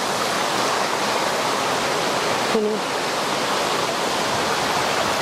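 Stream water splashing over rocks in a small cascade into a shallow pool, a steady rush.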